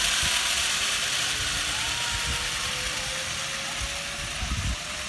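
Zipline trolley pulleys running along the steel cable: a steady whirring hiss with a faint whine slowly rising in pitch, growing gradually quieter.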